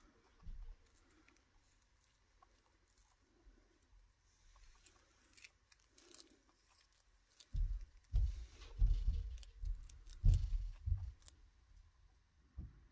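Chinchilla nibbling a small dry treat, faint sharp crunching clicks. A little past halfway a run of dull low thumps sets in for a few seconds and is the loudest sound.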